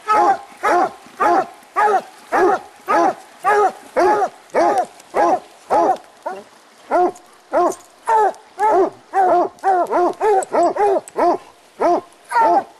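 Coonhounds barking steadily at the foot of a tree, about two barks a second. The barks come faster and overlap as a second dog joins in the middle. This is tree barking, the sign that the hounds have a raccoon treed.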